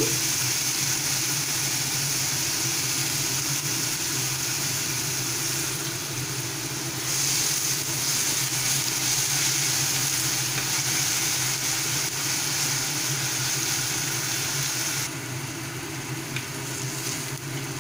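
Chopped onions, green chillies and ginger-garlic paste sizzling in hot oil in a non-stick frying pan over a full gas flame, stirred now and then with a wooden spatula. The sizzle grows louder about seven seconds in and eases off a couple of seconds before the end, over a steady low hum.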